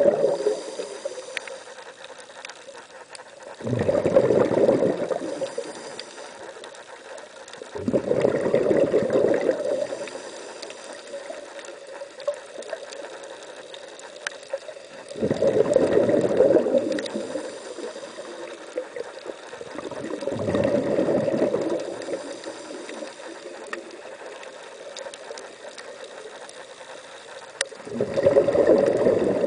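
Scuba regulator exhaust bubbles heard underwater: a diver's exhalations, in five bursts of bubbling a second or two long, spaced a few seconds apart, with a quieter steady hiss in between.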